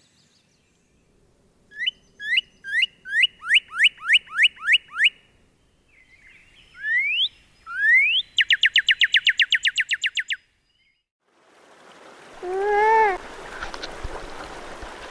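Northern cardinal singing: a run of about eight clear down-slurred whistles, then two rising whistles and a fast trill of short notes. Near the end, against a noisy background, a nutria gives one short, low call that rises and falls.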